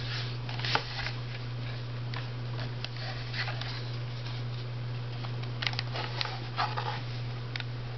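Handling noise from hands turning a small plastic netbook over: scattered light knocks and rubs against its casing, over a steady low hum.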